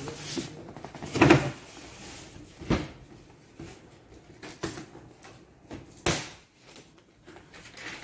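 Large cardboard carton being shifted and handled on a stack: dull knocks and scraping of cardboard against cardboard, the loudest knock about a second in and a few smaller ones after.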